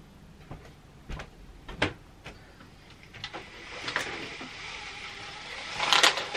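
A few light knocks and bumps, then a slatted window blind being pulled up on its cord, the slats rattling and clattering, loudest near the end.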